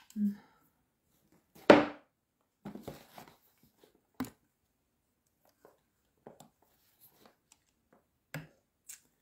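Scattered handling noises close to the microphone: a sharp knock about two seconds in, then a few short rustles and light taps, with silence between them.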